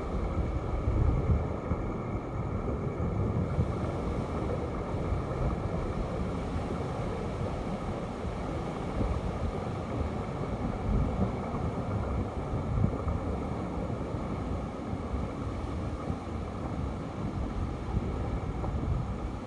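Wind rumbling on the microphone over steady sea surf, with gusty rises and falls.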